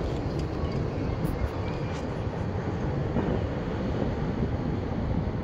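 Steady low rumble of a freight train's last tank cars rolling away on the rails, with a few faint ticks in the first couple of seconds.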